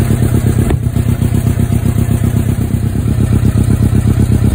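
Suzuki GSX600F inline-four engine running steadily just after start-up, heard close at the silencer outlet as a loud, rapid, even exhaust beat. There is one sharp pop about a second in. The engine spits some fire, which the owner takes to mean the carburettors probably need adjusting.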